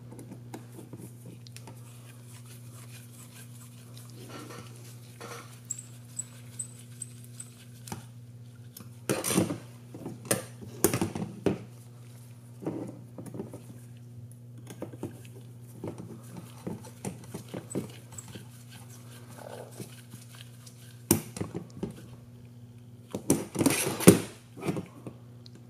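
Small metal clicks, taps and handling rustles of M3 screws being driven by hand through a knurled aluminium standoff on a drone frame. They come in scattered bursts, louder about nine to eleven seconds in and again near the end, over a steady low hum.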